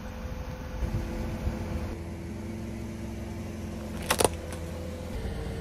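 Car engine running at a slow crawl, a steady hum. About four seconds in, two sharp cracks come as the tyre crushes a small object.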